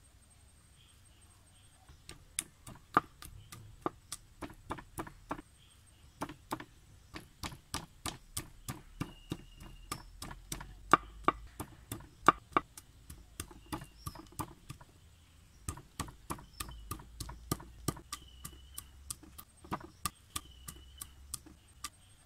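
Garlic cloves being pounded and chopped on a wooden chopping board: a fast run of sharp wooden knocks, about three to four a second, starting about two seconds in, with two short pauses.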